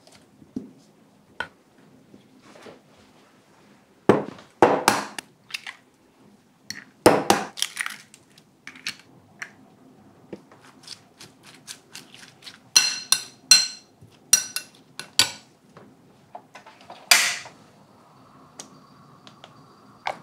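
A few light knife taps on a wooden cutting board, then two eggs cracked against a glass bowl in two loud clusters of knocks. A metal spoon clinks and rings against the glass bowl as the eggs are mixed into shredded cabbage. Near the end comes a brief loud rush of noise, then a faint steady hum.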